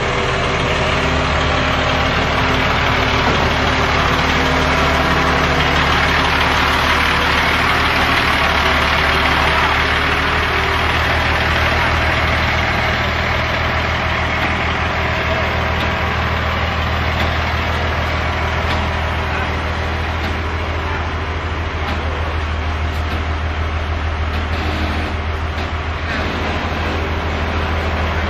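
Vehicle engine running steadily at an even speed, a constant low hum with no revving.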